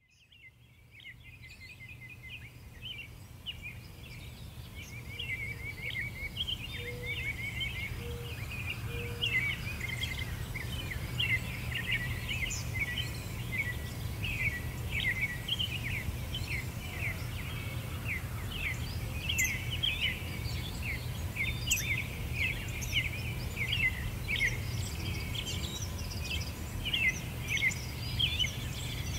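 Many small birds chirping densely over a steady low rumble, fading in from silence over the first several seconds.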